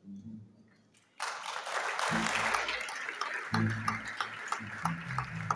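Audience applauding in a large hall, breaking out suddenly about a second in and turning into more even, spaced claps near the end.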